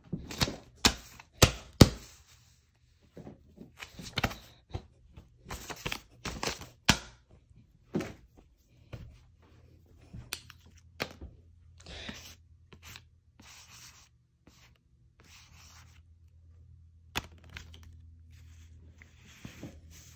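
Paper being handled and torn: rustling and tearing with sharp knocks and clicks, busiest in the first seven seconds. After that come quieter scattered rustles over a low steady hum.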